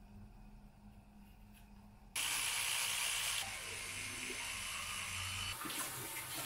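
Electric toothbrush switched on about two seconds in, then buzzing steadily while brushing teeth, its tone shifting a couple of times as it moves in the mouth.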